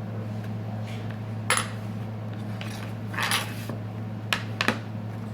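A few sharp clicks and clinks of small hand tools and phone parts being handled on a repair bench, with a short scrape a little past the midpoint and two quick clicks near the end, over a steady low hum.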